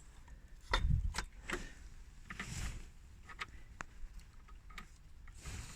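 Scattered light clicks and taps at an uneven pace, with a soft knock about a second in: hand work on the engine as the water pump's bolts are started by hand.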